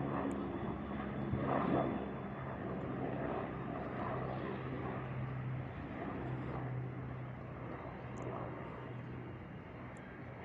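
Helicopter flying past: a steady engine and rotor hum that slowly fades.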